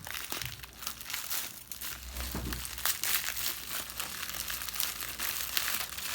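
Packaging being handled and opened, with irregular crinkling and rustling throughout.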